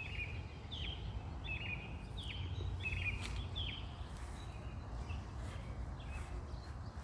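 A bird calling over and over, short notes that each drop in pitch, repeated roughly every second, which stop about three and a half seconds in. A steady low background rumble runs underneath.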